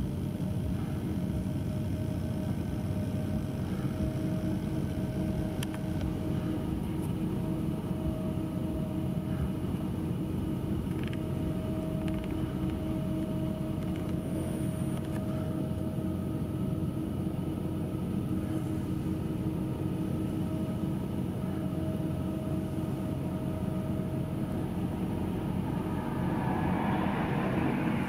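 Steady drone of a high-reach demolition excavator's diesel engine and hydraulics working the tower, a low rumble with a constant hum. Near the end a swell of road-traffic noise grows louder.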